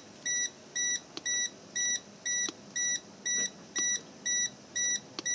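Freightliner Cascadia dashboard warning beeper sounding a steady, even run of short high-pitched beeps, a little over two a second.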